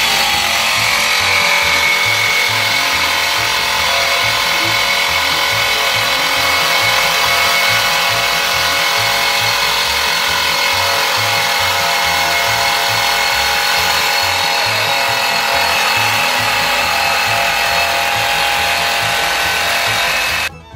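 DeWALT XR cordless jigsaw with a Lenox bimetal metal-cutting blade sawing through steel channel: a loud, steady grinding rasp of the blade cutting metal, which stops abruptly near the end.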